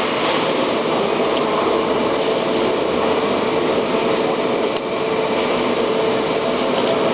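Steady mechanical background noise with a faint constant hum running through it, and a small click about five seconds in.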